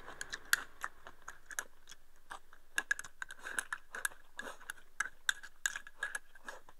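Chopsticks tapping and scraping against a small ceramic rice bowl as rice is shovelled from the bowl into the mouth: quick, uneven light clicks, several a second.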